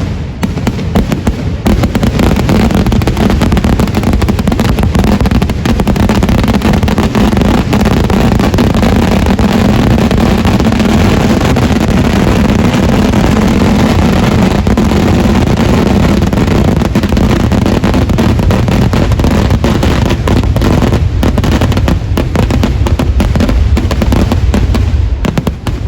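Fireworks going off in a dense, unbroken barrage of rapid bangs and crackles, very loud throughout. The barrage falls away suddenly near the end.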